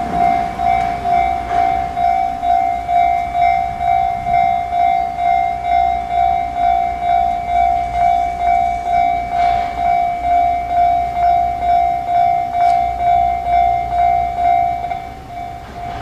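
Level-crossing warning bell ringing a steady, repeating clang of about two strikes a second: the signal that a train is approaching. It turns quieter near the end.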